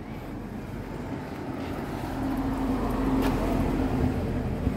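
A motor vehicle's engine passing close on the street, growing louder about halfway through with a steady hum, over low traffic noise.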